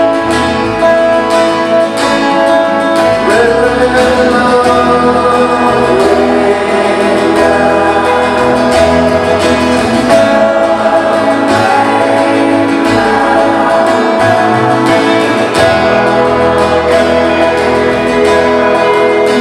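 Several acoustic guitars strumming chords together under a sung melody: a small band playing a worship song live.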